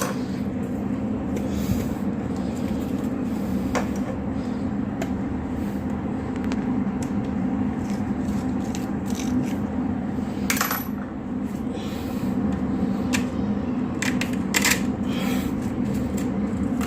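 Scattered sharp metallic clicks and clinks of a screwdriver and screws as an old 3-pin wall socket is taken out of its box, a few at a time with the loudest about ten seconds in. A steady low hum runs underneath.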